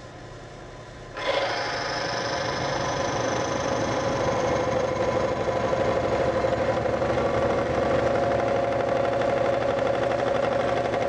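Timken OK load test machine switching on about a second in: its electric motor spins the hardened steel race against the test roller, a steady metallic whine over a rough grinding noise that grows a little louder as the load is pulled on. The motor keeps running under the heavy load on the treated, un-oiled metal surfaces without stalling.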